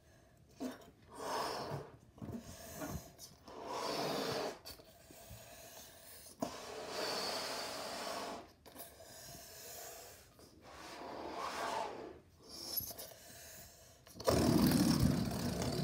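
A latex balloon being blown up by mouth: a series of long, breathy blows into it, with short pauses between for breath. Near the end comes a louder, deeper rushing sound lasting about two seconds.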